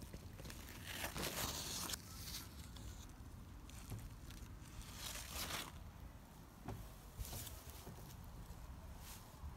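Squash leaves and long grass rustling in several short bursts, as the plants are pushed through.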